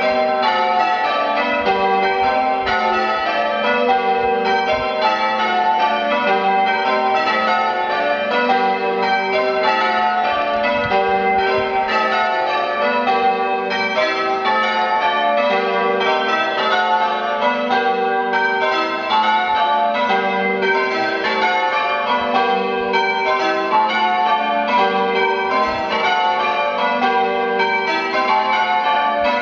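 Ring of eight Taylor-cast church bells being rung in changes: a steady, unbroken sequence of bell strikes following one another in even rhythm, their ringing tones overlapping.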